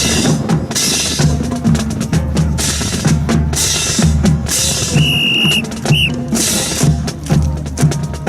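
Marching drum corps playing a steady beat on bass and snare drums with cymbals. A whistle sounds once in a long blast about five seconds in, then once briefly a second later.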